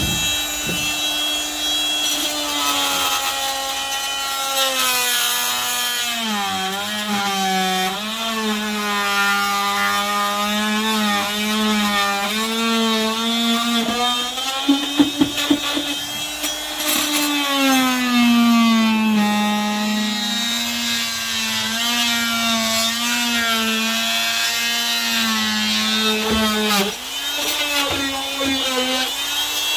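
Bladed power tool cutting through the fibreglass-covered wooden stringers of a boat hull. Its motor whine sags and wavers in pitch as the blade loads up in the cut. A cluster of sharp knocks comes about halfway through.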